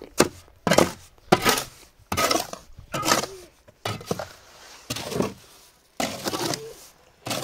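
Steel mason's trowel scraping and knocking mortar against concrete blocks, in a series of short, sharp strokes about once a second.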